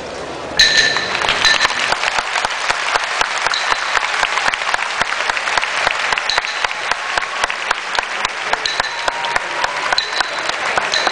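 Large arena crowd clapping, breaking out suddenly about half a second in and carrying on steadily.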